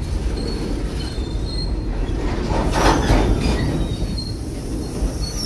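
Long freight train rolling past on the rails: a steady rumble of wagons over the track, with a louder stretch about three seconds in and a thin high squeal from the wheels.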